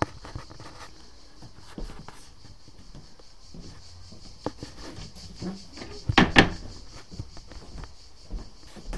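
Door inside a mobile home being handled: a quick clatter of knocks about six seconds in, with scattered small clicks and a steady faint hiss.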